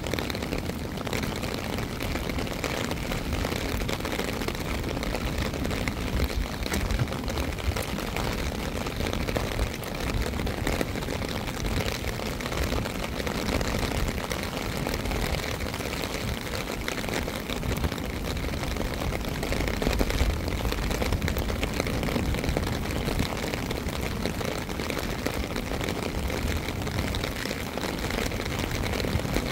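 Steady rain falling, an even hiss of fine ticks over a continuous low rumble.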